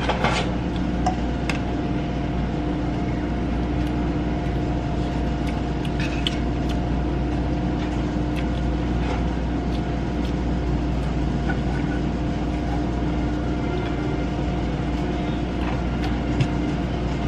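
Steady hum of an electric motor or fan running, with a few light clicks and knocks from kitchen work over it.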